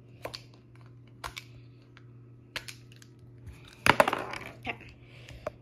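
Plastic markers clicking and rattling as a hand digs through a container of markers: a few light clicks, then a louder clatter about four seconds in.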